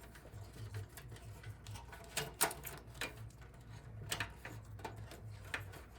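Scattered light clicks and knocks as a power supply's Molex cable and plastic connector are fed through a Power Mac G4 case, over a faint low hum.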